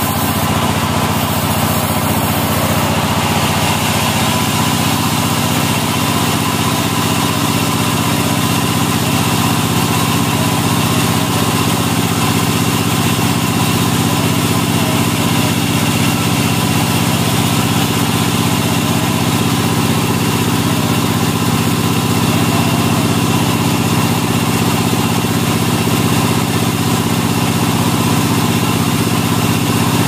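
Large band sawmill running steadily as its band blade cuts lengthwise through a big log: a steady machine hum from the mill's drive under the hiss of the blade in the wood.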